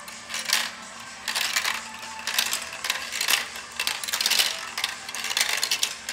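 Glass marbles rolling and clattering down a plastic marble run, a dense rattle of small clicks through the tubes and funnel that comes in several spells, one after another.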